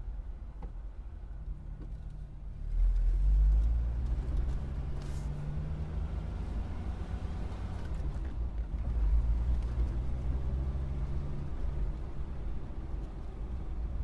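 Car engine idling, then picking up revs about three seconds in as the car pulls away, with a second surge of engine noise around nine seconds in.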